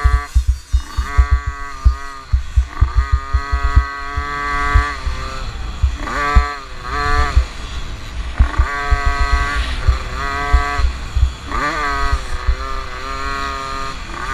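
50cc two-stroke motocross bike engine heard up close from onboard, revving up, holding and backing off several times as the throttle is opened and closed, with low thumps throughout.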